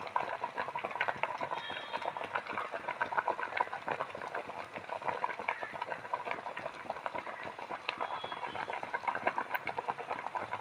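Water boiling hard in the pot of a fish steamer, a steady dense bubbling and crackling.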